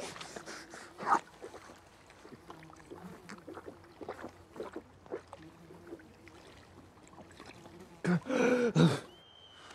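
A person lying face down and drinking straight from a muddy puddle, lapping and slurping the water with small splashes and gulps. About eight seconds in comes a loud, voiced gasp for breath, lasting about a second.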